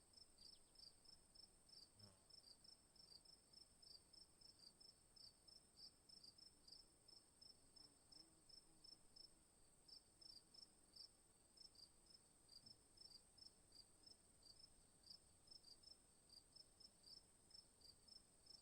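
Faint night insect chorus: crickets chirping in short, even pulses about four a second over a steady high-pitched trill.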